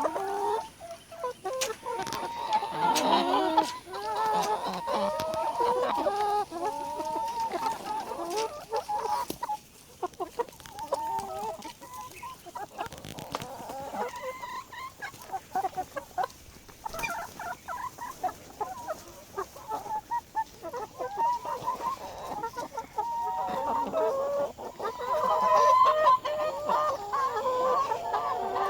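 A flock of chickens clucking, with many short calls overlapping throughout, busiest in the first few seconds and again near the end.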